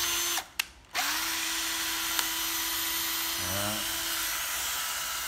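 Hitachi 12V cordless drill driver running with no load at a steady pitch. It cuts out with a click about half a second in, starts again about a second in, and runs evenly and smoothly.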